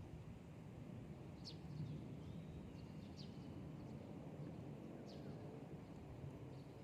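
A bird giving short, high, downward-sweeping chirps, three of them spaced a second and a half to two seconds apart, over a steady low outdoor rumble.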